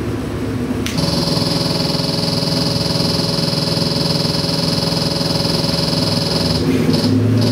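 Ford 7.3L Godzilla pushrod V8 idling steadily at about 900 rpm on an engine dyno. About a second in it gets louder and a steady high-pitched whine joins it.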